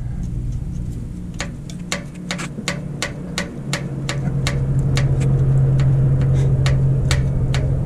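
Irregular light metallic clicks, a few a second, as a stack of magnets is worked up and down on a lifter stuck by varnish in its bore in a cast iron engine block, drawing it out a little with each pull. A steady low hum runs under the clicks and grows louder about three and a half seconds in.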